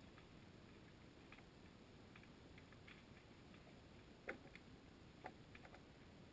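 Near silence underwater, heard through a waterproof camera housing: a faint low hiss with scattered faint clicks, and two sharper clicks about four and five seconds in.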